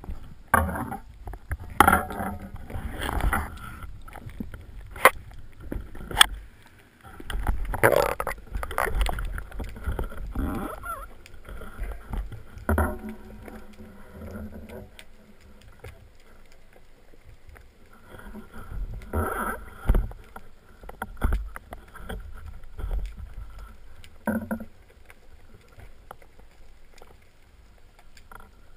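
Underwater handling noise from a speargun-mounted camera: irregular knocks, clicks and sloshing water as a diver grips a speared gilthead seabream on the gun's shaft near the surface. The sound comes in bunches in the first half and again later, and quietens toward the end.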